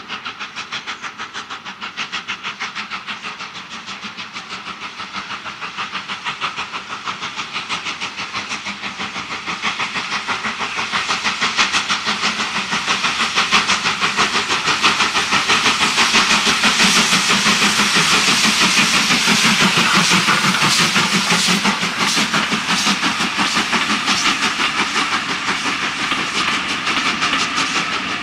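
LNER K1 2-6-0 steam locomotive chuffing with a rapid, even beat as it works a passenger train, growing louder as it approaches and passes close by. Near the end the coaches clatter past over the rail joints.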